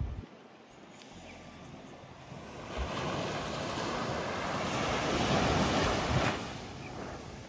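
Sea waves breaking and washing onto the beach: quiet at first, then a wave's wash swells in after about two and a half seconds, holds, and falls away sharply about a second before the end.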